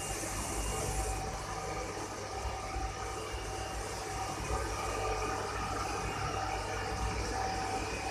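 Steady mechanical hum with a constant faint whine over a low rumble, like a machine or engine running at idle.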